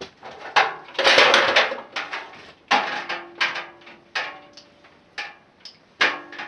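Metal tools and parts being handled: a string of clanks and knocks, with a louder scraping rush about a second in and a couple of knocks that ring briefly.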